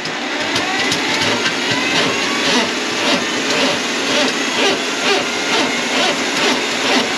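A small electric motor running steadily, with a faint rising whine about a second in.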